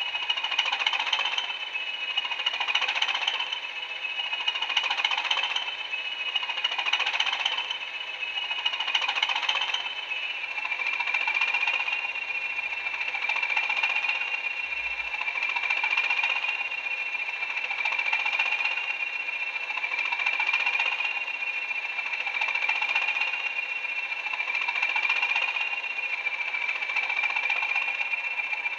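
Class 20 diesel's English Electric eight-cylinder engine, recorded for a model-railway sound decoder and played through the model's small speakers with almost no bass, running through its cold-start warm-up. A high whine sits over the engine beat. At first the sound swells about every two seconds; about ten seconds in it settles into a steadier idle, and the whine drops slightly in pitch.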